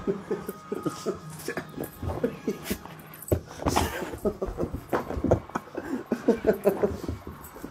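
Border collie whining in short, quick runs while it plays, mixed with knocks and scuffling on the floor.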